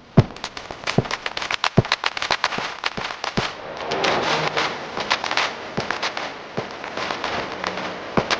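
Pigeons clapping and flapping their wings: a string of sharp, irregular cracks with a stretch of rustling wingbeats about four seconds in, and faint cooing.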